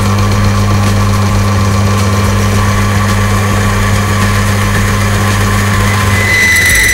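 Electric oil friction test machine running under load with a steady motor hum and a thin high whine. About six seconds in, a loud high-pitched screech sets in: metal scuffing at the rotating test bearing, the sign that the full synthetic oil's film is failing under two weights of load.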